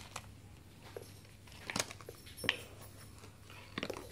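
Small plastic toy capsule and toy pieces being handled: a few faint, sparse clicks and taps, with a short cluster of them near the end.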